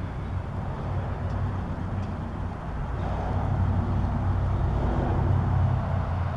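Steady low engine drone, growing louder about three seconds in.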